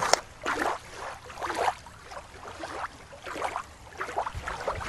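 Shallow water lapping and sloshing over a pebbly shoreline, in a run of soft, irregular swishes.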